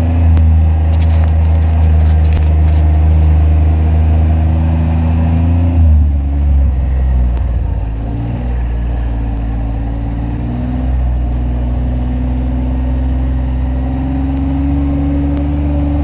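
Kawasaki Mule UTV engine running while driving, heard from on board, with light clicking rattles in the first few seconds. About six seconds in, the engine note changes and settles lower, then climbs slowly near the end as it speeds up.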